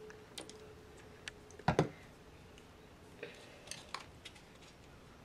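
Light scattered clicks and taps of a plastic spoon and a squeeze bottle against a paper plate while slime is mixed, with one louder thump a little under two seconds in.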